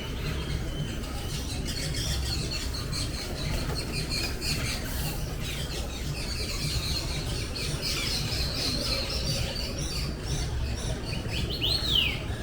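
Several birds chirping and calling, a steady run of high chirps over a low rumble. Near the end one bird gives a loud whistle that slides down in pitch.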